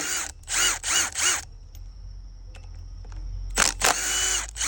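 Power driver spinning out the 10 mm clutch bolts on a Honda CRF250R: three short trigger pulls in the first second and a half, each rising and falling in pitch, then a longer steady run about a second before the end.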